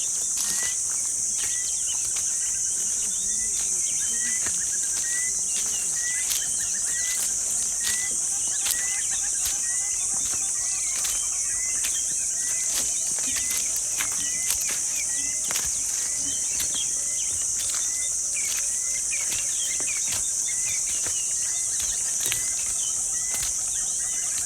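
Steady, loud, high-pitched chorus of jungle insects. Over it, a short rising chirp repeats about twice a second, with scattered bird chirps.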